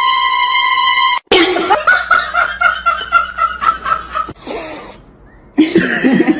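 A steady held tone for about a second, cut off abruptly, then a person laughing in quick repeated bursts for about three seconds; a short hiss follows, and a loud voice comes in near the end.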